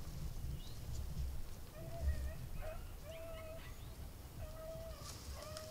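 Beagles baying on a rabbit's scent trail: a run of short, high, steady-pitched cries, one after another, starting about two seconds in, over a low rumble.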